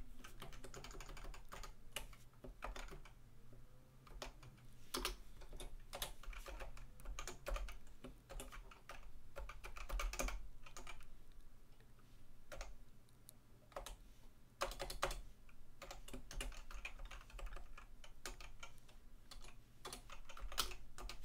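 Typing on a computer keyboard: irregular runs of keystrokes with short pauses in between.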